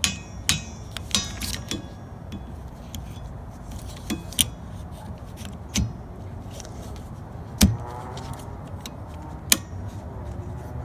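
Clicks and knocks of a new windshield wiper blade being fitted and snapped onto its wiper arm: about seven sharp, separate clicks with pauses between them, the loudest about three-quarters of the way through.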